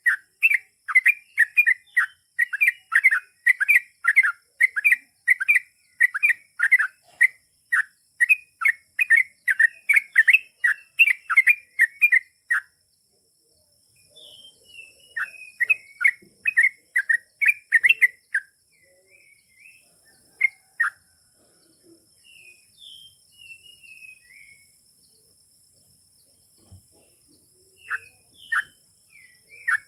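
Sooty-headed bulbul (trucukan) singing a long run of rapid, repeated short notes, about three a second, for the first twelve seconds or so. After a short break it gives scattered chirps and brief phrases, and the rapid run starts again near the end.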